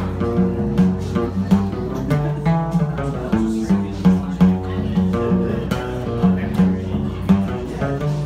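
Guitar playing an instrumental passage of quickly picked notes over low bass notes, between sung verses of a live song.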